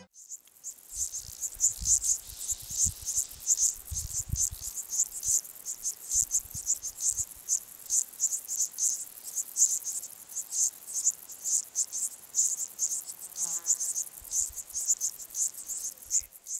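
Cricket chirping: short, high-pitched chirps repeating about three or four times a second. Irregular low thumps sound under it in the first few seconds.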